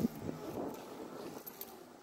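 Gotway MSuper X 84V electric unicycle rolling slowly on a smooth painted floor: a quiet, steady rolling noise from the tyre and hub motor.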